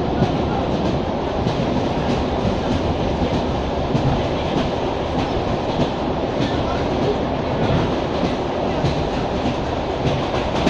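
Wheels of an ED9M electric multiple unit clattering over rail joints at speed, heard inside the passenger car: a steady running rumble broken by a continuing series of sharp clacks.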